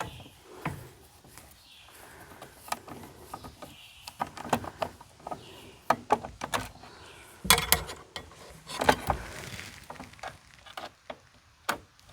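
Irregular clicks, knocks and clatter of hand work with a screwdriver and small parts, with two heavier thuds about two-thirds of the way through.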